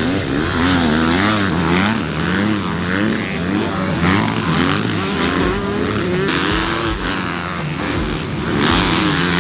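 Several motocross bike engines revving as they race, the pitch rising and falling over and over as the throttle opens and closes.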